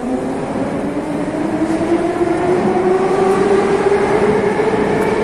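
Metro train's traction motors whining as it pulls out of the station, the pitch rising steadily as it accelerates, over the rumble of the wheels.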